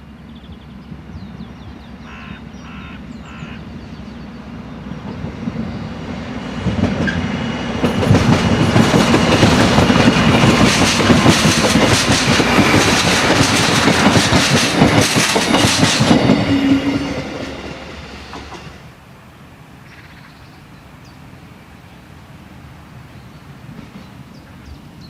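DB class 628 diesel railcar running over points and crossings, its wheels and running gear clattering loudly as it passes, building up over the first few seconds and dying away well before the end. This rattle over switches is characteristic of the class 628 and sounds as if parts were about to fall off, though nothing is loose.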